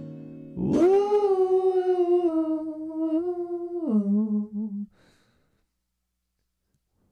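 A singer holds one long hummed note as the last guitar chord fades under it; the note steps down in pitch about four seconds in and stops just before five seconds.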